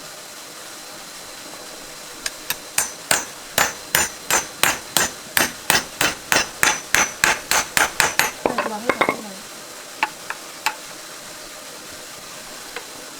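Hammer striking metal in a rapid run of about twenty ringing blows, roughly three a second, over about six seconds. A short scraping rattle follows, then a few lighter taps.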